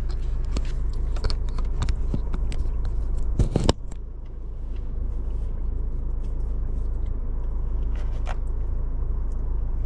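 Steady low rumble with scattered small clicks and crackles, and a loud knock about three and a half seconds in.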